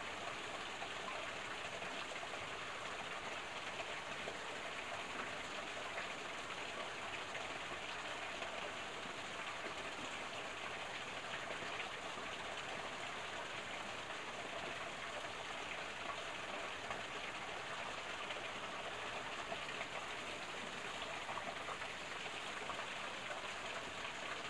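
Small stream flowing, a steady, even rush of water.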